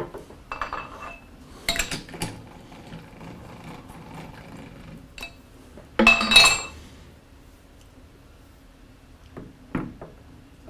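Metal clinks and clanks from working a lathe's three-jaw chuck with a chuck wrench: a few scattered knocks, with the loudest, ringing clatter about six seconds in.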